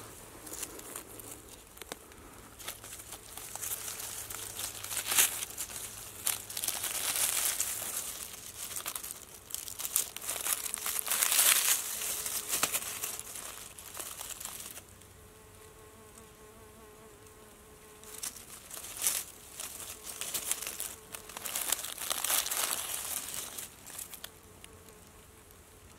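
Dry fallen leaves rustling and crackling in bursts as a hand brushes them aside on the forest floor. Under it an insect buzzes faintly throughout, heard most clearly when the rustling pauses past the middle.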